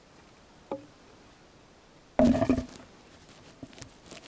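Wooden poles knocking together as they are handled: a light knock about three-quarters of a second in, then a louder ringing wooden clatter a little after two seconds, followed by a few light taps.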